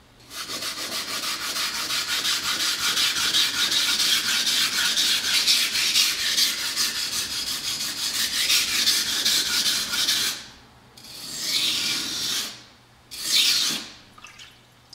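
A small block rubbed rapidly back and forth over the face of a sharpening stone: a steady, fast gritty scraping that stops about ten seconds in. Two shorter bursts of scraping follow.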